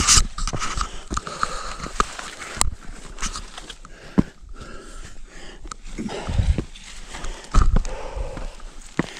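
A hiker's boots scuffing and thudding on bare rock with brush rustling while scrambling up a steep slab, with hard breathing from the effort. Two heavier thuds come in the second half.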